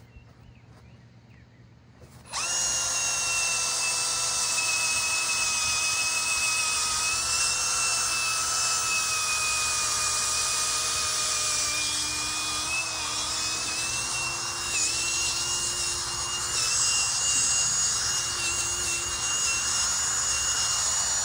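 Cordless drill driving a long 18-inch bit down into the soil to bore an anchor-spike hole. Its steady motor whine starts about two seconds in, its pitch sagging a little at times under load, and it stops suddenly at the end.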